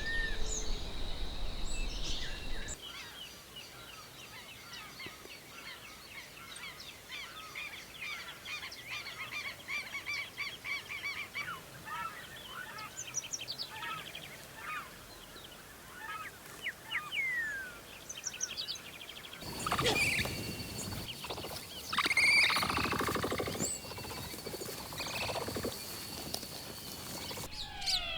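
Wetland birds calling in several spliced field recordings. First comes a busy chorus of small birds chirping and trilling. About two-thirds of the way in it cuts to louder, lower calls over a steady high-pitched whine.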